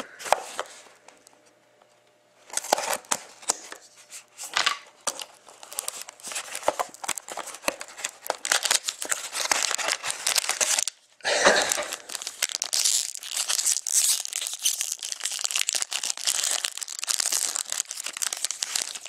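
Hobby box of hockey trading cards being torn open and a foil card pack crinkling and tearing, with crackly rustling that starts about two and a half seconds in and briefly stops just before eleven seconds.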